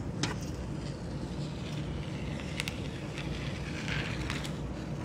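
Protective plastic film being peeled off a laptop LCD panel: crinkling with a few sharp clicks and a short crackle about four seconds in, over a steady low background rumble.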